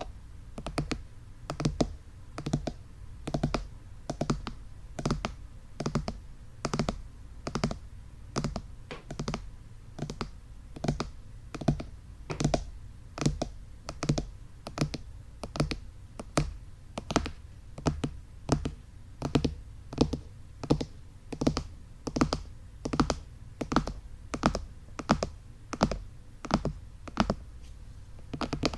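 Fingertips tapping on the ears of an ASMR microphone in a steady, even run of soft taps, about two to three a second.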